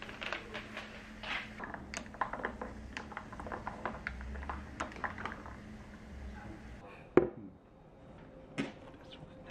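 Wooden spoons stirring strawberry soda in two glass mason jars, with many irregular light clicks and knocks against the glass over a fizzing hiss of carbonation. The hiss stops about seven seconds in, followed by a single sharp knock and a softer one near the end.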